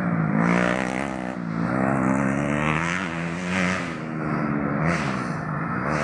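Modified underbone racing motorcycles at full race pace, engines revving up and falling back again and again as they work around a dirt track, with more than one engine heard at once.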